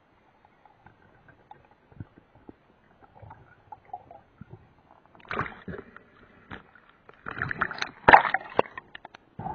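Water sloshing and gurgling in uneven bursts, one about five seconds in and a longer, louder stretch from about seven to nine seconds, over scattered small clicks.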